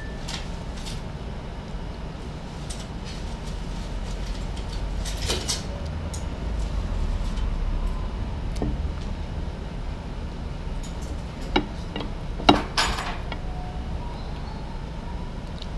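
Dishes and cutlery clinking a few times at a breakfast table over a steady low rumble. The loudest clinks come at about eleven and a half and twelve and a half seconds in.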